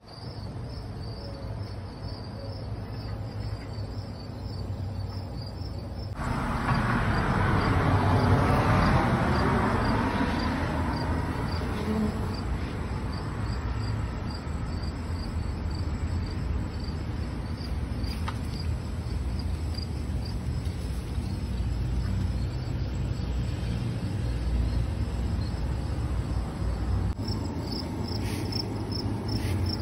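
Crickets chirping in a steady, rhythmic high pulse. A car passes by from about six to eleven seconds in, over a low, steady background rumble.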